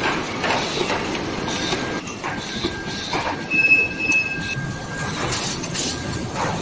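Automated assembly and packaging line machinery running: a steady mechanical noise with repeated clacks and a thin, steady high squeal. A second, higher squeal sounds for about a second near the middle.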